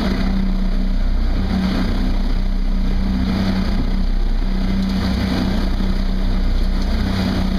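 Fishing boat's engine running steadily under way, a constant hum over the churn of the wake behind the stern.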